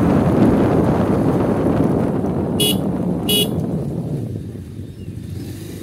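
A vehicle horn beeps twice, short and high-pitched, about two and a half seconds in, the beeps under a second apart. Underneath is the steady rumble of wind and road noise from the moving vehicle, which eases off near the end.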